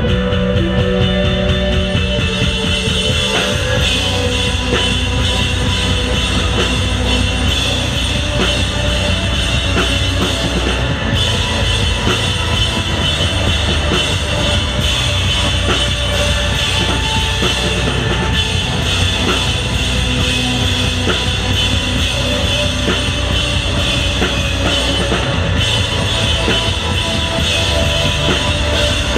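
Live rock band playing at full volume: electric guitar and bass over a full drum kit with cymbals, a steady driving beat.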